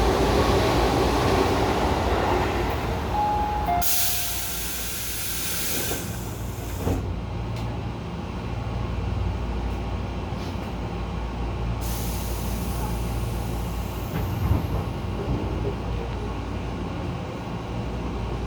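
Tobu 8000 series train doors closing: a two-note falling door chime, then a sudden burst of compressed-air hiss from the pneumatic door engines and a thud as the doors shut, followed by the train's steady low hum.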